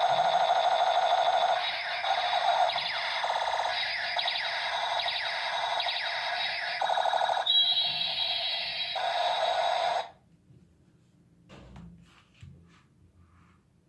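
Electronic sound effects from a battery-powered toy gun: a steady electronic tone, then a run of repeated sweeping laser-like tones and a falling tone, cutting off suddenly about ten seconds in. A few faint clicks follow.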